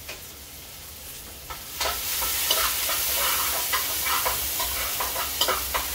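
Ginger frying in hot oil in a pot, starting to sizzle suddenly about two seconds in, with short clicks and scrapes of a spoon stirring it.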